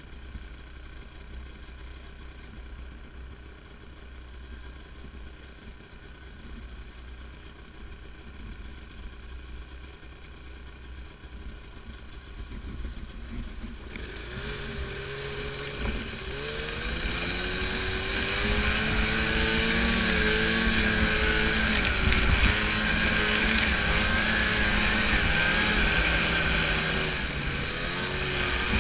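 Snowmobile engine running low and quiet, then about halfway through the throttle opens and it revs up and runs hard, its pitch climbing and wavering as the sled drives through deep powder snow.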